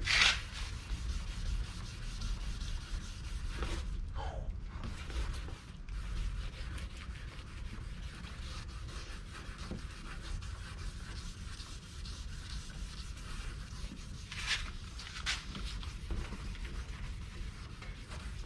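Wet sanding of a plastic headlight lens by hand: a 2000-grit sanding disc on a hand applicator scrubbed over the wet lens, a steady scratchy rubbing. This is the surface-prep stage of a headlight restoration, taking off the yellowed, oxidised layer. Two louder strokes come near the end.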